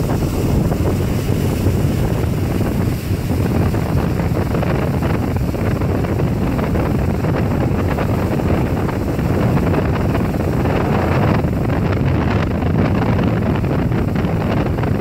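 Wind buffeting the microphone on a moving tow boat, over the steady run of the boat's engine and the rush of water.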